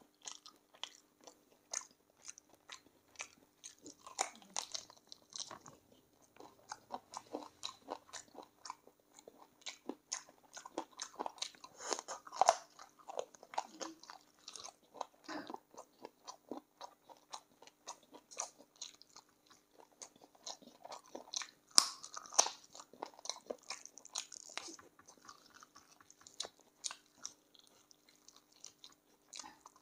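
Close-up eating of spicy chicken feet in gravy: a run of short crunches and chewing as skin, cartilage and small bones are bitten. The crunches are loudest about twelve seconds in and again about twenty-two seconds in.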